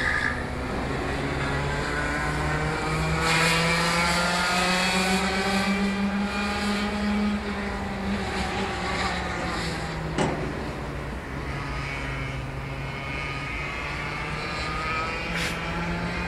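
Rotax 125 cc two-stroke kart engine lapping a circuit, its pitch rising as it accelerates and falling as it lifts off for corners. There is a brief sharp click about ten seconds in.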